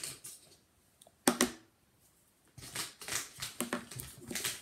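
Plastic highlighter pens clicking and clattering as they are picked out of a set and handled, with one sharp louder knock about a second in, then a quick run of clicks and rustling.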